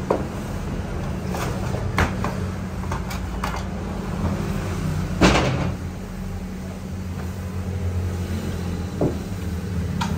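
Steady low machine hum with a few sharp knocks over it, the loudest about five seconds in.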